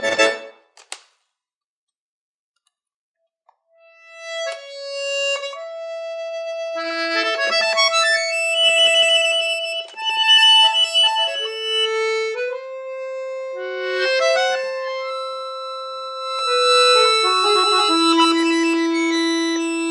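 Accordion: a loud chord cuts off, and after about three seconds of silence a slow passage of long held reedy notes begins, with a melody over sustained chords.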